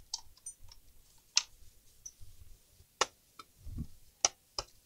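HP Pavilion 14 laptop case being handled and worked open: about six sharp, irregular clicks, with a duller knock a little after the middle.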